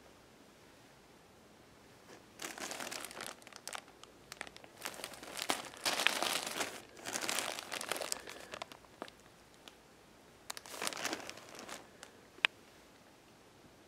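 Plastic packaging of a pack of disposable pull-up diapers crinkling as it is handled and turned over, in several spells, then a single sharp click near the end.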